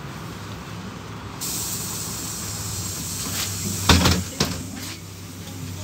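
City bus (LiAZ 5292) idling at a stop with a steady low engine hum. About a second and a half in, a hiss of compressed air starts, and about four seconds in the pneumatic doors shut with a loud thump and a second knock just after.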